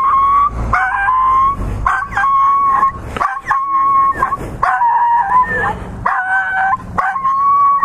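Small black-and-tan dog crying out in about ten drawn-out, high-pitched yelps and whines, one after another. The dog is hurt; the rider thinks it has a broken leg.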